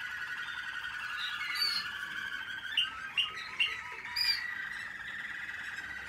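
American Singer canaries singing: a continuous song of rolling trills, with a few short, loud chirps about three to four seconds in.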